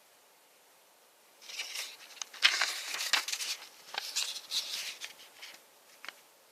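Rustling and small sharp clicks of things being handled, starting about a second and a half in and going on irregularly for about four seconds, with one more click near the end.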